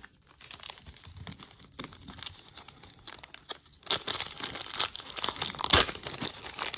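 A 1991-92 Score hockey card pack being torn open by hand, its wrapper crinkling and tearing. Quiet handling at first, getting louder from about four seconds in as the wrapper is ripped apart.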